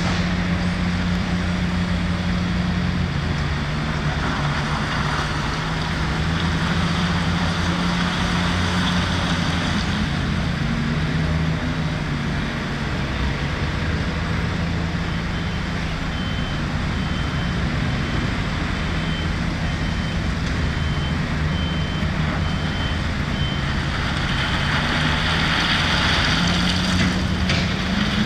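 Heavy diesel engines of a Volvo L180D wheel loader and a Scania truck running, the engine note rising and falling as the machines work. From about halfway a reversing alarm beeps at about one beep a second, pausing for a few seconds near the end.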